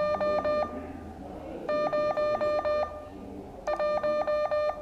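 Morse code (CW) tone keyed on and off in dots and dashes, sending an amateur radio call sign for copying practice. The elements come in three groups, with pauses of about a second between them.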